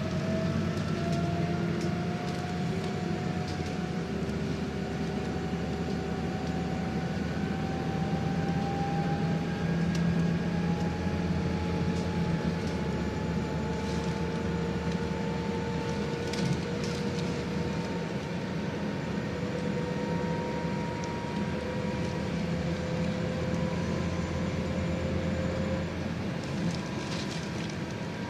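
Interior of a Scania Citywide 12 LF CNG city bus under way: a steady low hum from its CNG engine, and a drivetrain whine that rises slowly in pitch as the bus gathers speed. A few light rattles from the cabin fittings come in the middle and near the end.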